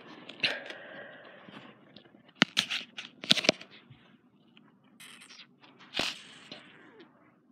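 Handling noise from a steampunk prop gas mask being picked up and turned over: a handful of sharp knocks and clicks, the loudest in a cluster near the middle, with scraping and rustling in between.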